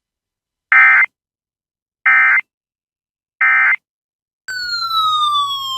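NOAA Weather Radio SAME end-of-message tones: three short, identical buzzy digital data bursts a little over a second apart, closing the severe thunderstorm watch broadcast. About four and a half seconds in, a falling electronic tone with a low hum beneath it starts and cuts off sharply.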